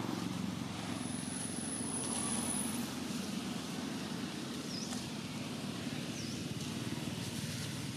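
Steady low outdoor rumble, with a thin high whistle from about one to three seconds in and two short high chirps around five and six seconds.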